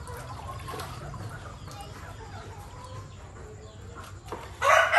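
Quiet clucking from a rooster, then a rooster starts crowing loudly near the end.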